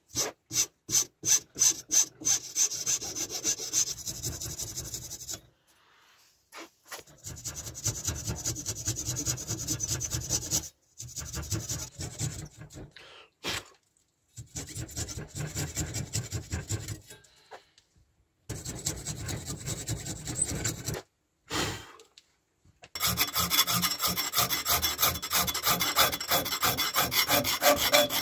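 Rasp or file scraping a wooden knife handle clamped in a vise, shaping it to size. A few distinct strokes at first, then stretches of fast back-and-forth filing broken by short pauses.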